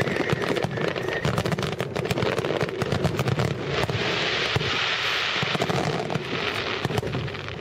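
Fireworks going off in a dense, rapid string of crackles and pops that runs on without a break. A hissing crackle swells up in the middle.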